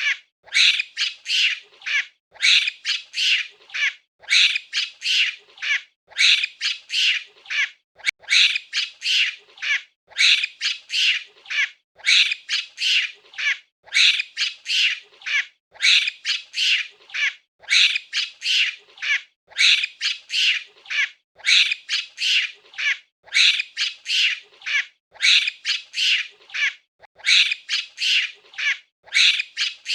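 Monkey chattering: rapid high-pitched squeaky calls in clusters of several, repeating every second or two with brief gaps between clusters.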